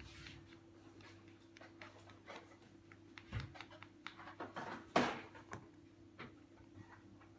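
Scattered light clicks and taps of small objects being handled, with one sharper click about five seconds in, over a faint steady hum.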